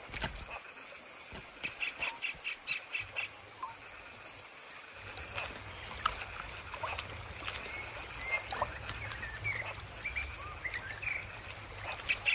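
Forest ambience with birds calling: scattered short chirps and whistles, and about two seconds in a quick run of evenly spaced sharp notes, about five a second. A low rumble comes in underneath from about five seconds in.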